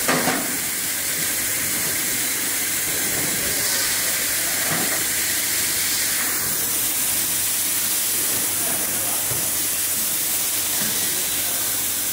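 Automated laser welding machine at work on a pillow plate panel: a steady, even hiss, with a short knock at the very start.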